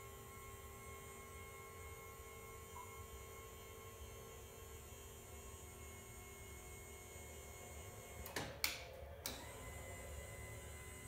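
12-volt DC linear actuator humming steadily as it extends and swings an ATV snow plow blade to one side. A few sharp knocks sound about eight to nine seconds in.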